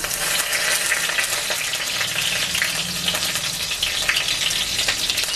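Bay leaves frying in hot oil in a kadai: a steady sizzle with many small crackles, whole spices being tempered at the start of a curry.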